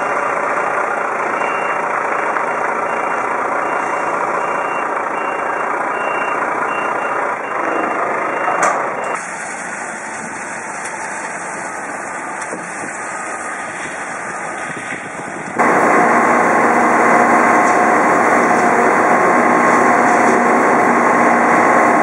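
Heavy diesel machinery running across three spliced clips. First a truck backs up with a faint repeating beep. Then a Caterpillar wheel loader works, and from about two-thirds through comes a louder, steady engine and hydraulic hum as the container unloads.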